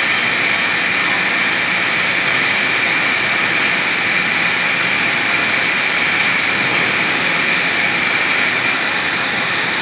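Disk bell electrostatic paint spraying system running in its spray booth: a steady, loud rushing hiss with faint high whining tones.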